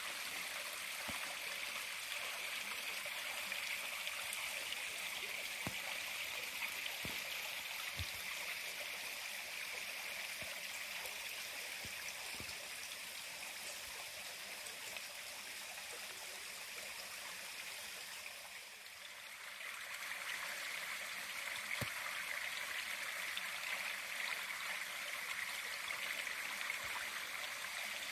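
Rushing creek tumbling over rocks: a steady wash of running water that fades briefly about two-thirds of the way through, then comes back.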